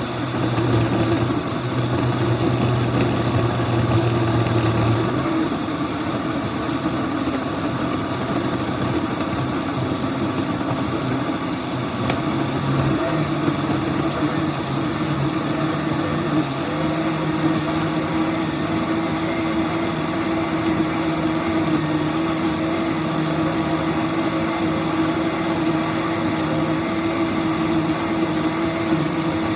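Countertop blender motor running steadily, pureeing a thick tomato sauce with peppers, onions and mushrooms; its pitch shifts a little about five seconds in and again a little past halfway.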